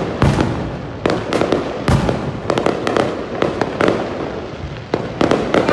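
Fireworks going off in quick, irregular succession: sharp bangs several times a second over continuous crackling.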